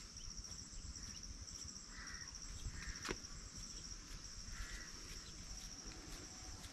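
Faint outdoor ambience: insects keep up a steady, high pulsing chirr, with three short bird calls about two, two and a half, and four and a half seconds in. A single sharp click comes about three seconds in.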